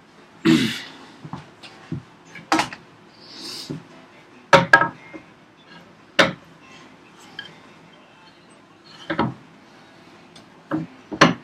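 Irregular sharp knocks and clicks of wooden workpieces and hand tools being handled and set down on a workbench, about six in all, with a brief scrape near the start.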